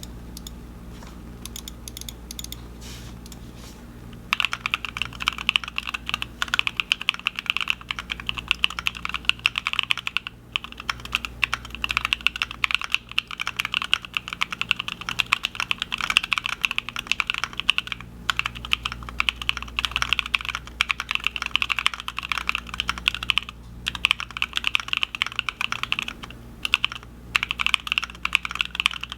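Fast, continuous typing on an IV Works AV3x custom mechanical keyboard with stock Epsilon switches, an aluminium plate with plate foam and GeekArk keycaps. The keystrokes are light and sparse for about four seconds, then come as a dense, rapid stream of clacks with a few brief pauses.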